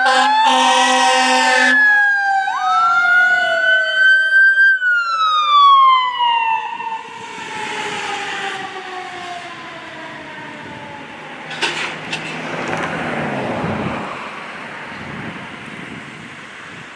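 Fire engine air horns blasting a steady chord for about the first two seconds over wailing sirens. The sirens then sweep up and down and slide lower in pitch as the fire engine and ambulance pass and drive off, fading into traffic noise.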